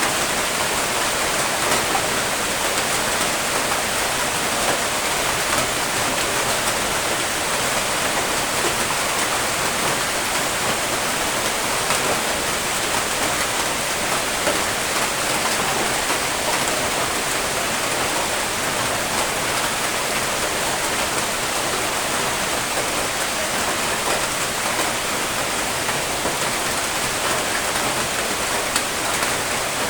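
Steady rain falling: a constant, even hiss of many small drops, with no thunder and no change.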